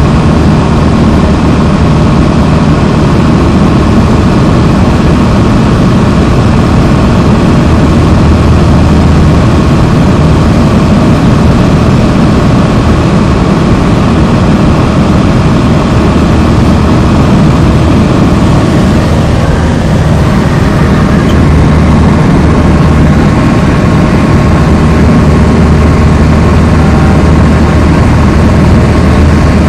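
Single-engine light aircraft's engine and propeller running steadily in cruise flight, a loud constant low drone heard inside the cabin.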